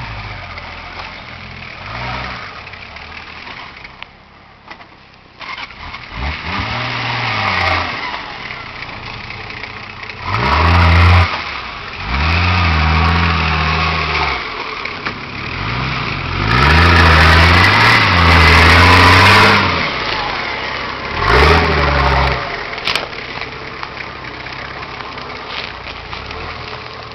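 Nissan Patrol GR Y60's diesel engine revving in about five bursts of a few seconds each, the pitch rising and falling, with quieter running between them, as the 4x4 pulls forward under load over a rutted mound. The longest and loudest burst comes past the middle.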